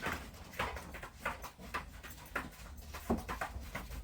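A string of light clicks and knocks, several a second, from the old blower motor and its wiring plug being handled.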